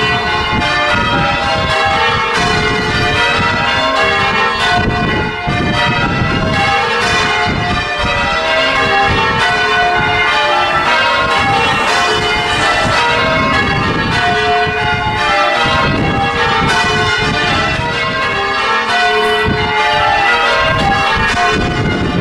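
Church bells rung full-circle in changes: a steady, unbroken stream of strokes at many different pitches, each ringing on into the next.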